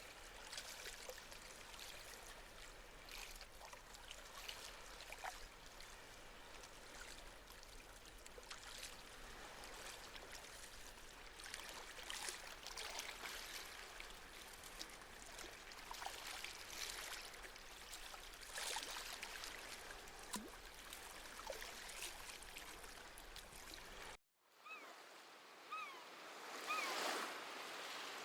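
Small sea waves lapping and trickling at the shore, a soft hiss of water with many little splashes. About 24 seconds in, the sound drops out for a moment, then a seabird calls three times over a swelling wash of surf.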